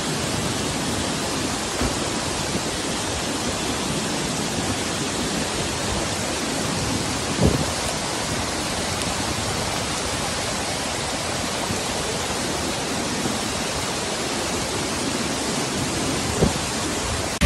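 Steady rushing of floodwater, an even noise that does not let up, with a few brief knocks, the clearest about seven and a half seconds in.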